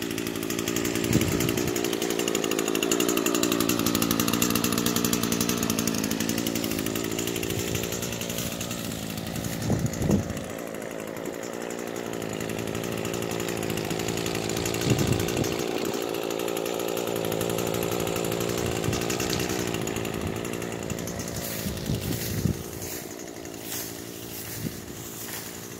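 A small gasoline engine running steadily, its pitch slowly drifting up and down, getting quieter near the end.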